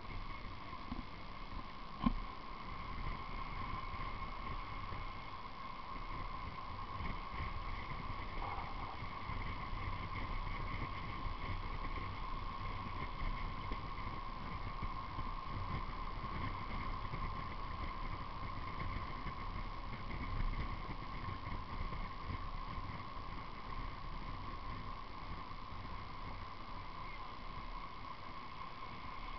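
Drift trike wheels rolling on asphalt on a downhill run, a continuous rumble with wind noise and a steady high whine, and one sharp knock about two seconds in.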